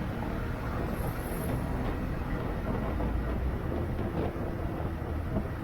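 Steady low rumble of a Bajaj Pulsar NS200's single-cylinder engine and road noise while riding in traffic.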